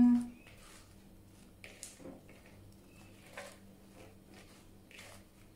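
Torn lettuce leaves rustling and crinkling as hands toss them in a plastic bowl, in faint, scattered soft rustles.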